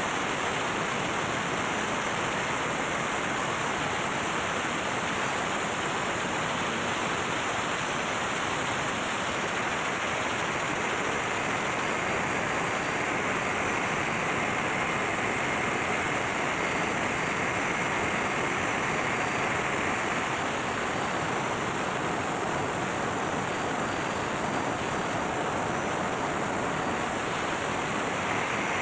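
MAN B&W auxiliary diesel generator engine running, heard as a loud, steady engine-room din. A faint high whine rises out of it for several seconds in the middle.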